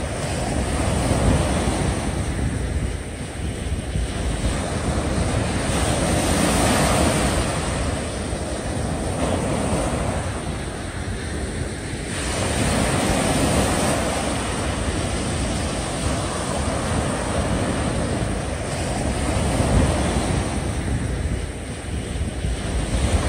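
Sea waves surging with wind gusting across the microphone, the wash swelling and easing about every six seconds.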